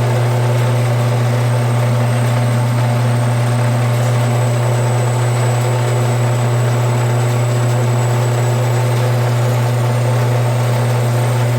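Band saw running steadily, its blade slowly cutting through a thick, hard brass bar. A strong, even low hum with fainter steady tones above it, unchanging throughout.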